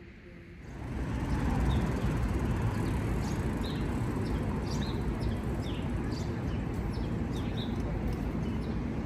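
Quiet room tone gives way about a second in to city street ambience: a steady rumble of traffic with small birds chirping in short, repeated high calls over it.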